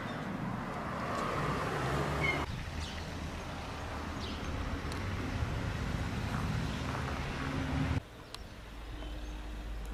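Outdoor ambience with a steady low rumble and a few faint bird chirps. The background changes abruptly about two and a half seconds in and again near the end, where the shots are cut together.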